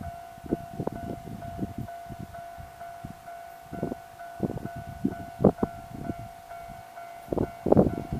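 Japanese level-crossing warning bell ringing, a steady electronic ding repeating in an even rapid beat. Irregular low thumps of wind buffeting the microphone come and go over it.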